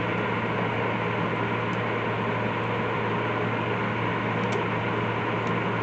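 Steady hiss with a constant low hum, and a few faint small clicks.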